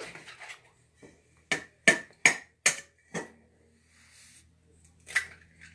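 An egg rapped against the rim of a stainless steel mixing bowl to crack it: five sharp knocks in quick succession about a second and a half in, then one more near the end.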